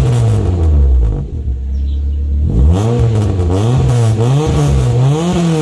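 Exhaust of a Ford Lynx 1.6 four-cylinder through a Greddy chambered muffler, being revved in a stationary sound check. The revs drop back to idle, hold there for about two seconds, then the engine is blipped three times in quick succession.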